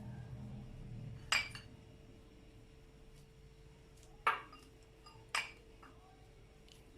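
Three sharp clinks on a kitchen dish, a few seconds apart, while dried figs are being cut up into a bowl.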